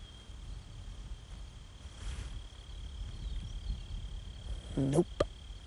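Crickets trilling steadily at one high pitch over a low rumble. About five seconds in, a man briefly says a short word.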